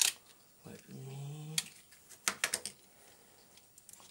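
Sharp clicks of the parts of a diecast mecha figure being handled and snapped: one at the start, another about a second and a half in, then a quick run of four or five clicks. Between the first two, a short low hum rises slightly.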